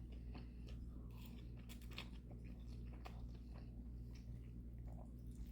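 A person chewing a mouthful of lo mein noodles: soft, irregular wet mouth clicks and smacks, over a steady low hum.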